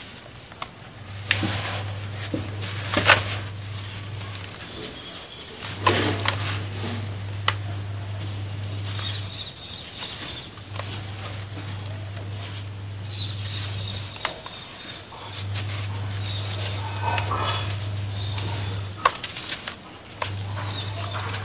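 Hands crumbling and sifting a dry mix of sand, cement and charcoal ash in a plastic tub: gritty rustling and pattering as powder and small lumps fall, with occasional sharper crunches of clods breaking. A low steady hum comes and goes every few seconds underneath.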